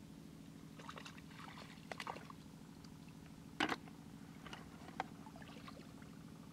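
Hands splashing and rummaging in shallow rice-field water while snails are picked, with a few sharp knocks as they are dropped into a plastic bucket, the loudest about three and a half seconds in. A steady low hum runs underneath.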